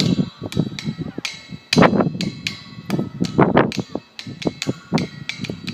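A fence banging: a rapid, irregular run of knocks and rattles with a faint ringing between hits, and louder bursts of banging about two seconds in and again about three and a half seconds in.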